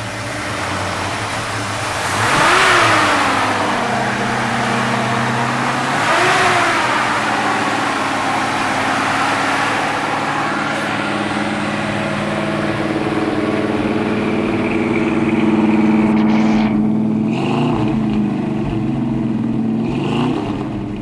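Chevrolet 350 V8 engine running at idle and blipped twice, about two and six seconds in, each rev rising and quickly falling back. It then settles to a steady idle, with two lighter blips near the end.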